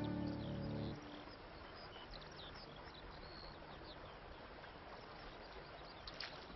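Bowed-string music, violin and cello, ends about a second in. Faint countryside ambience follows, with scattered short high chirps that are a little stronger near the end.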